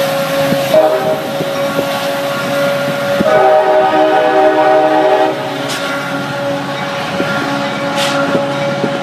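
Diesel locomotive horn sounding two chords as a commuter train pulls out past the platform: a short blast about a second in, then a longer one of about two seconds starting around three seconds in. Under it a steady hum from the locomotive and the bilevel cars rolling by, with two sharp clicks in the second half.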